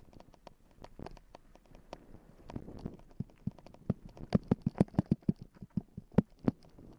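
A mountain bike clattering as it rolls downhill over a stony track: a stream of sharp rattling knocks. They are scattered at first and turn dense and loudest from about four to six and a half seconds in.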